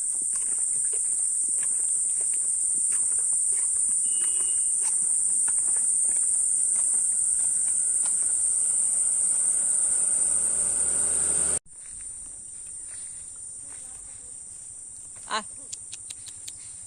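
Insect chorus: a loud, steady, high-pitched drone that drops suddenly to a quieter level about two-thirds of the way through, with a few short clicks near the end.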